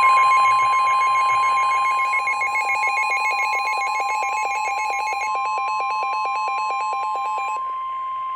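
Emergency alert attention tones: a fast-pulsing electronic alarm tone with a steady high single tone under it. The pulsing stops about seven and a half seconds in while the steady tone holds on.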